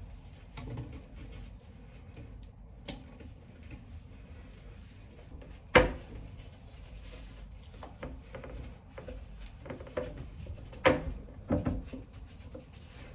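Soft rubbing and handling noises of wet wipes being used on a toilet, broken by a few sharp knocks. The loudest knocks come about six seconds in and near eleven seconds.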